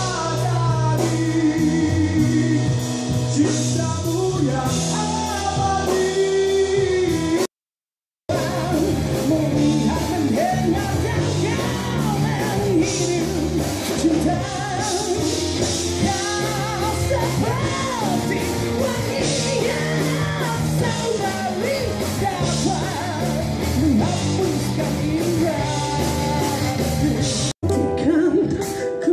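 A singer performing a pop-rock song into a microphone with band accompaniment, picked up live in a studio hall. The sound cuts out completely for under a second about eight seconds in, then the song carries on.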